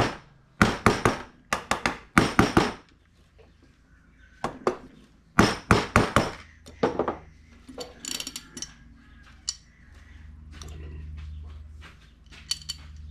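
A wooden mallet taps a Mighty Demon 750 double-pumper carburetor in several quick clusters of knocks, freeing the float bowl from the body once its screws are out. Softer clicks of handling the loose bowl follow, with a low hum near the end.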